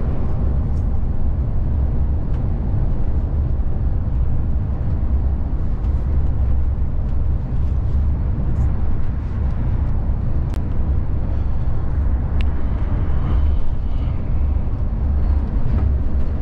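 A VDL Futura coach driving at motorway speed, heard from the driver's seat: a steady low drone of engine and road noise.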